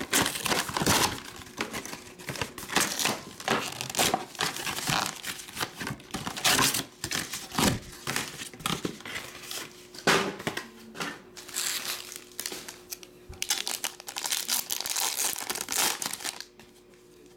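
Foil trading-card packs being crinkled and torn open by hand: a dense run of rustling and sharp crackling that stops near the end.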